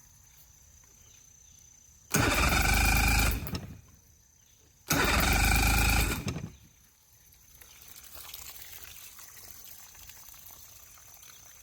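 Electric starter cranking a Mercury three-cylinder two-stroke 60 hp outboard twice, each burst a bit over a second, without firing. A compression gauge is fitted to cylinder 2 for a compression test.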